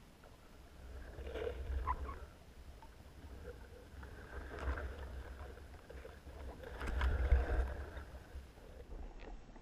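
Muffled low rumbles and light knocks of water movement and handling, picked up by a GoPro Hero3 sealed in its underwater housing. The rumble swells three times: about a second in, around four and a half seconds, and loudest around seven seconds.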